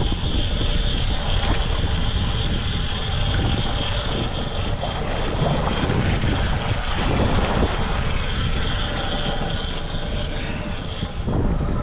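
Wind buffeting the microphone over the steady drone of a boat motor, with an even high whine running under it. The whine and the high hiss cut off abruptly near the end.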